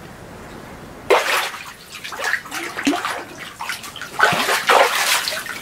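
Water splashing hard in an ice-fishing spear hole as a speared pike thrashes on the spear. The splashing starts suddenly about a second in and goes on in irregular surges.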